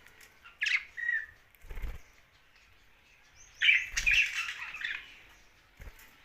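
A young budgerigar chirping: a short, sharp call under a second in, then a longer burst of scratchy chatter around the middle, which is the loudest part. A couple of low bumps are heard under the calls.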